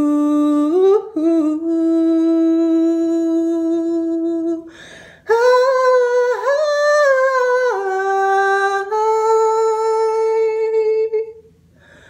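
A girl's unaccompanied voice singing wordless held notes, hummed or on an "ooh". One long steady note, a short break about five seconds in, a few notes that step and glide downward, then another long held note that stops about a second before the end.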